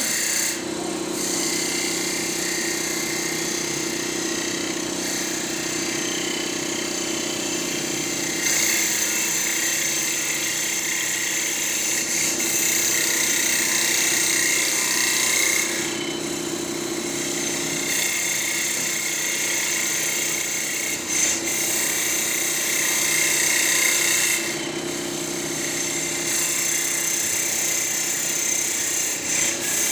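Mustang MT5025 mini CNC wood lathe running, its spindle turning a wooden blank while the cutting tool shaves the wood, with a steady hum under the cutting. The cutting sound changes every several seconds as the tool moves to a new pass.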